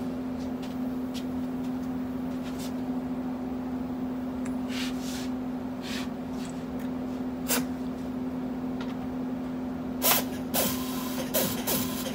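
Air-powered 3/4-inch torque gun tightening bus wheel lug nuts to 450 ft-lb: short bursts of air hiss around five and seven and a half seconds in, then several close together with a thin whine in the last two seconds. A steady low hum runs underneath.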